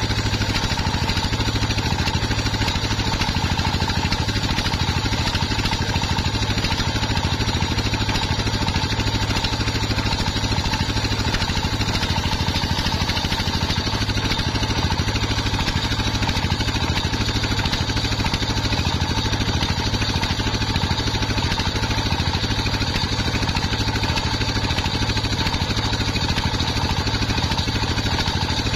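Homemade circular saw bench running steadily, its motor drone and spinning blade ripping waru (sea hibiscus) wood into rafter strips.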